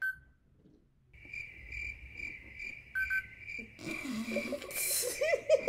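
Electronic tone from a toy lie detector game reading an answer: a steady high beep pulsing a little under three times a second, after a short beep at the start and with another short beep about three seconds in. Laughter and voices come in over it near the end.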